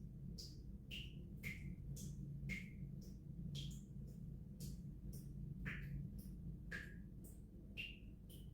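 Water dripping from a tap into water below, each drop a sharp plink with its own short ring at a slightly different pitch, coming irregularly about twice a second over a steady low hum. This is a tap left dripping in winter so the pipes do not freeze and burst.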